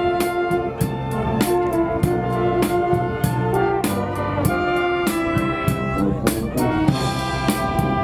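School wind band playing live outdoors: brass and woodwinds holding melody and chords over a steady drum beat.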